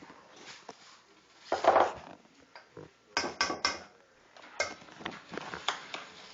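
A few irregular clattering knocks and bumps: one louder clatter about two seconds in, three quick knocks just after three seconds, then sharper clicks.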